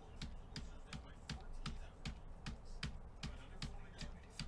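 Computer keyboard clicking: one key pressed over and over at a steady pace of about three clicks a second, each click with a soft thump.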